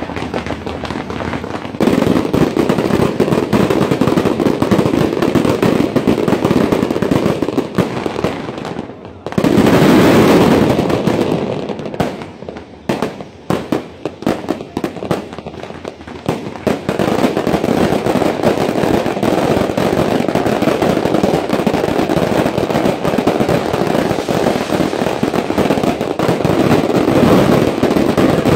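Fireworks barrage: rapid, continuous crackling and banging of many bursts. It is loudest about ten seconds in, thins to scattered separate bangs for a few seconds, then becomes a dense crackle again.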